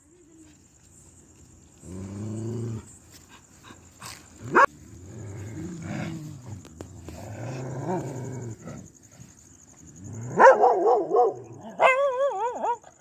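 Pomeranian growling aggressively in low stretches, with a sharp yelp about four and a half seconds in, then a run of loud, wavering barks near the end.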